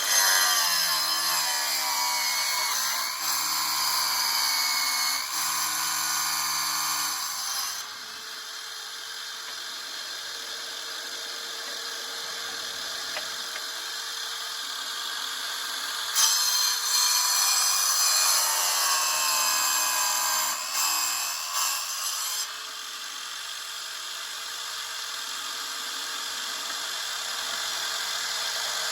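Electric power tool running steadily. It has two louder stretches, in the first eight seconds and again about sixteen to twenty-two seconds in, where its pitch dips and recovers as it bites into material.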